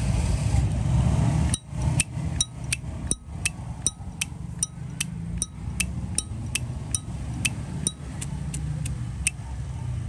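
Brass Zippo lighter lid being flicked open and snapped shut over and over: a quick run of sharp metallic clicks, each with a short bright ring, about two or three a second.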